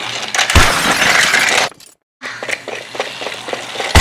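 A crash: a sharp hit, then about a second of shattering, glass-like breaking noise that cuts off abruptly. After a short break come scattered clicks and clatter, and another sharp hit at the end.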